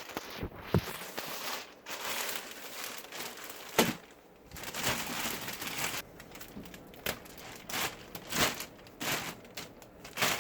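Packaging being handled and pulled out of a cardboard box, crinkling and rustling irregularly, with a few sharp knocks, the loudest about a second in and just before four seconds in.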